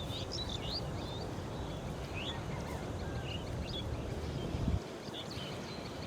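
Small birds chirping repeatedly in short, pitch-sliding calls over a low rumbling noise; a brief thump comes about three-quarters of the way through, after which the rumble drops.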